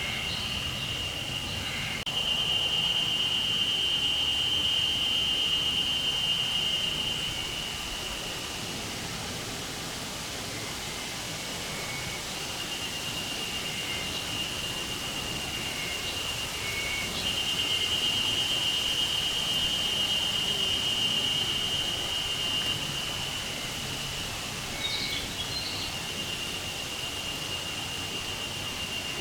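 A chorus of Japanese spring cicadas (harusemi, Terpnosia vacua) singing a continuous high, buzzing drone. It swells louder twice, a couple of seconds in and again past the middle, and eases off in between. A few brief faint chirps are heard underneath.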